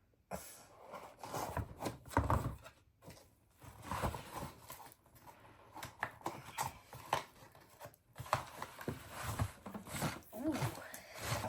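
Cardboard shipping box being opened and unpacked by hand: irregular rustling, tearing and scraping of cardboard and packaging, in stops and starts.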